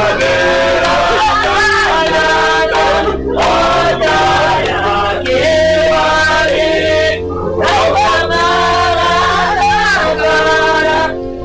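A choir singing, men's voices prominent, with steady held notes sounding beneath the voices.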